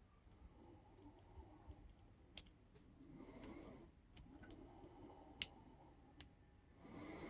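Faint, scattered ticks and clicks of a lock pick working the pin stack of a CISA brass padlock held under tension, with two sharper clicks, the louder about five seconds in.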